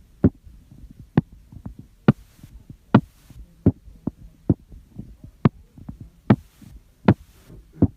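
Recorded mediastinal crunch (Hamman's sign) heard on chest auscultation: sharp crackles in step with the heartbeat, a little more than one a second, with fainter ticks between them, over a low rumble. The crunch is the sign of air in the mediastinum (pneumomediastinum).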